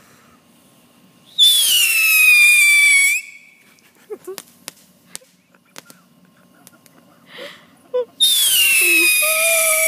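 Two whistling fireworks going off one after the other, each a loud shrill whistle about two seconds long that falls in pitch; the second starts about eight seconds in and is still going at the end.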